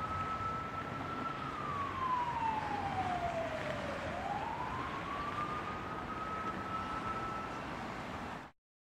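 A single siren-like wailing tone over a steady hiss, sliding slowly down in pitch and then back up. The hiss cuts off suddenly near the end.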